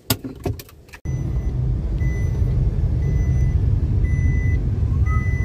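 A few sharp clicks and knocks, then from about a second in the steady low rumble of engine and road noise inside a moving car, with a short electronic beep repeating about twice a second.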